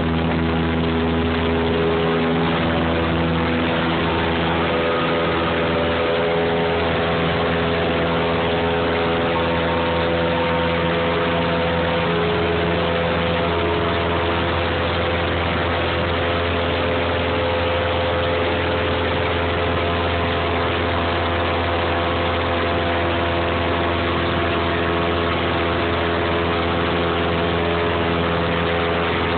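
Aircraft engine heard from inside the cabin, a steady, even drone with a deep hum under it while the plane climbs after takeoff.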